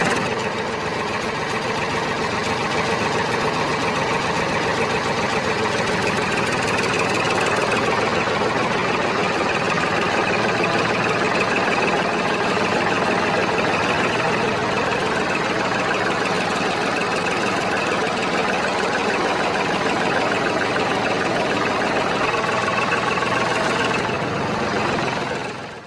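Small motor of a toy tractor running steadily, a continuous mechanical whir with a fine rapid chatter.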